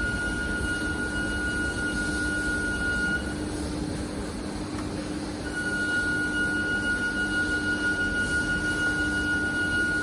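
JY 850C vertical injection molding machine running, a steady low hum with a thin high whine over it. The whine cuts out a few seconds in and returns about two seconds later.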